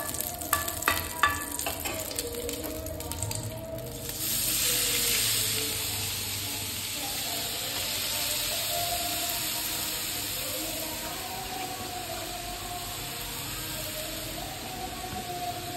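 A few knocks of a utensil against the pan, then about four seconds in a steady sizzle starts as grated carrot meets hot ghee and keeps frying.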